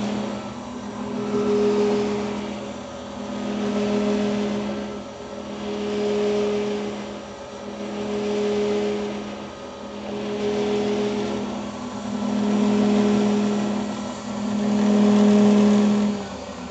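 Grizzly G3103 milling machine spindle running at 2,220 RPM, a steady hum that swells and fades about every two seconds: the pulsating noise the owner reports as a fault, which comes with the whole table vibrating. Near the end it cuts off and winds down.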